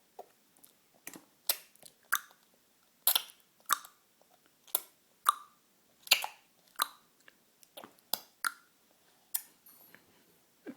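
A baby clucking his tongue: about a dozen sharp tongue clicks at an uneven pace, one or two a second.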